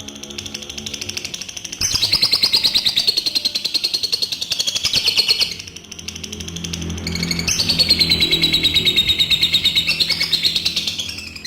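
Adult lovebird ngekek: long, rapid, high-pitched chattering trills lasting several seconds each, two long bouts with a short break between them, over steady background music.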